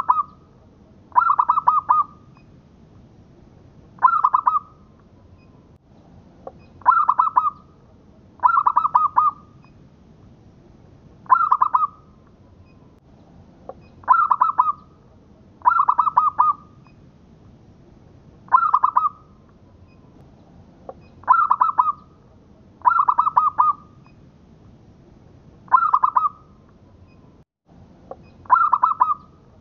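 Zebra dove (local perkutut) singing its cooing song: short phrases of rapid, stuttering coos, repeated in a steady rhythm about every one to three seconds.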